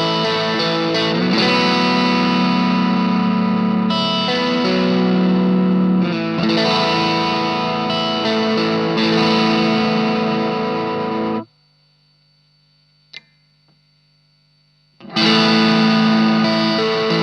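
Electric guitar, a Fender Stratocaster, played through an Ibanez Tube Screamer Mini overdrive pedal into a Marshall MG15 amp, strumming sustained overdriven chords. About eleven seconds in the playing cuts off sharply, leaving a faint amp hum and a single click, and the chords start again about four seconds later.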